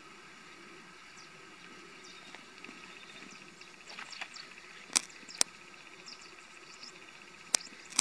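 Forest ambience: a steady insect drone with faint, short, high bird chirps scattered through it. Four sharp clicks in two close pairs, about halfway through and near the end, are the loudest sounds.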